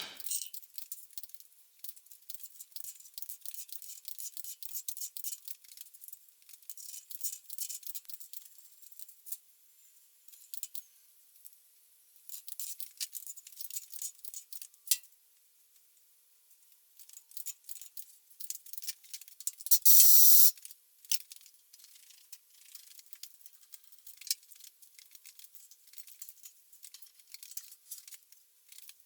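Metal chips being brushed and scraped off a milling machine table: light, irregular high-pitched scratching and clicking. About 20 seconds in there is one short, loud hiss.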